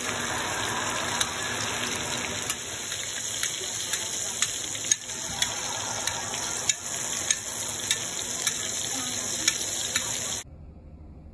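Butter sizzling and bubbling in a stainless steel pan around a pan-seared Chilean sea bass fillet, with frequent sharp pops and spatters. The sizzling cuts off abruptly about ten seconds in.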